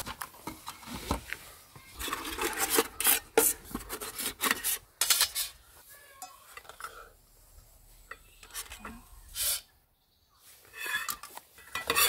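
Nested metal camping pots and a frying pan being unpacked by hand: a strap buckle undone, then the pots pulled apart and set down, with scraping, rubbing and light clinks of metal on metal. The sound drops out for a moment about ten seconds in.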